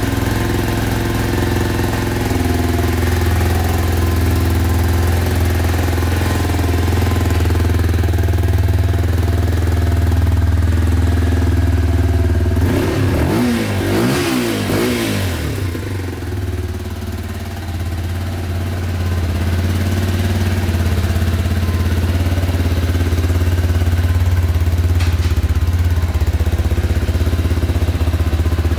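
Lexmoto LXR125's 125 cc single-cylinder engine idling steadily, with a brief rise and fall in pitch about halfway through.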